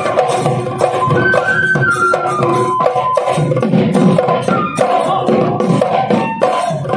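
Live Assamese Bihu folk music: dhol drums beating a steady rhythm under a wind instrument playing a melody with held and bending notes.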